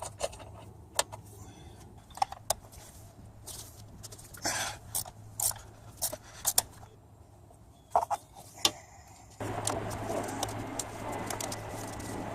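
Scattered sharp metallic clicks and clinks of hand tools on a bolt while a 10 mm bolt is removed from the timing belt cover. About three-quarters of the way through, a steady hiss comes in underneath.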